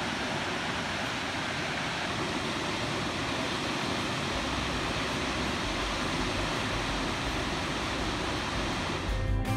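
Steady rushing of a distant waterfall dropping into the Cane Creek gorge. Guitar music comes in near the end.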